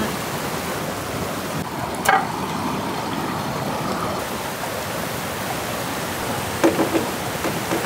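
Steady rush of a river running over rocks, with a single short click about two seconds in.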